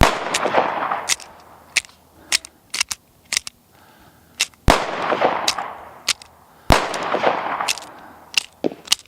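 Three rifle shots, the second about four and a half seconds after the first and the third two seconds later, each with a long rolling echo. Lighter sharp clicks and knocks fall between the shots.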